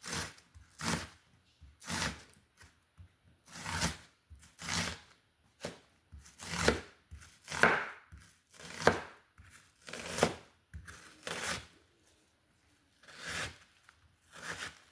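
Kitchen knife slicing through red onions, each cut a sharp knock, in slow uneven strokes about one a second, with a pause near the end.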